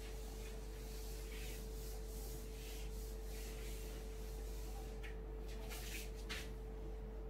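Whiteboard duster rubbing across a whiteboard in repeated wiping strokes, then a marker writing on the board in a few quick strokes near the end. A faint steady electrical hum runs underneath.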